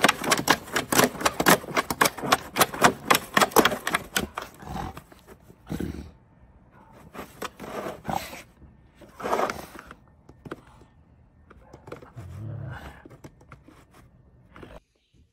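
A plastic snow shovel scraping over snow and pavement in quick rasping strokes, dense for the first four seconds and then in a few separate scrapes. A golden retriever growls as it bites at the blade.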